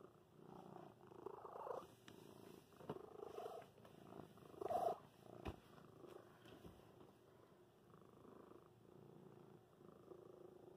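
Domestic cat purring close to the microphone, a soft rise and fall with its breathing. One sharp click comes just past halfway.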